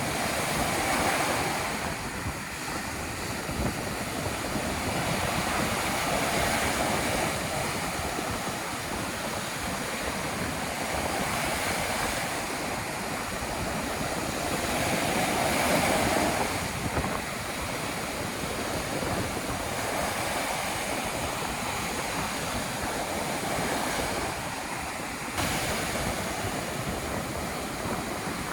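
Ocean surf in a storm, waves breaking and washing in, swelling and easing every several seconds, with strong wind buffeting the microphone.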